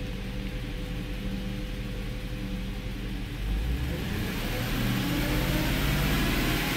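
2006 Porsche Cayenne's 4.5-litre V8 idling steadily, then revved from about three and a half seconds in, its note rising in pitch and getting louder.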